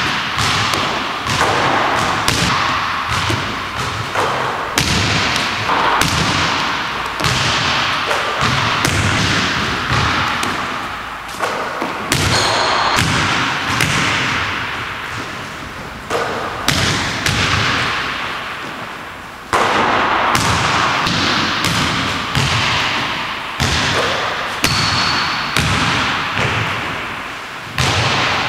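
A basketball thuds again and again on a hardwood gym floor and hits the hoop, an impact every second or two. Each thud echoes and dies away slowly in the big gym.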